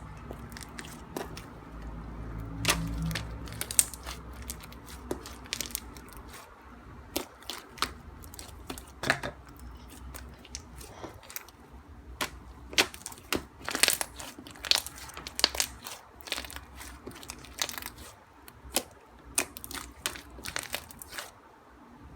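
Slime packed with plastic pearl beads being squeezed and poked by hand, giving irregular crunchy clicks and crackles.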